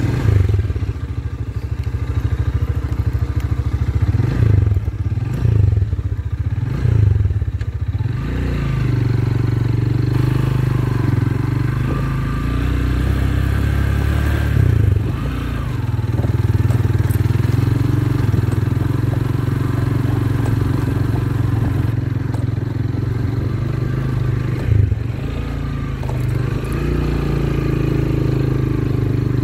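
Motorcycle engine running while being ridden along a rough dirt track. The revs rise and fall several times in the first eight seconds and again about fifteen seconds in.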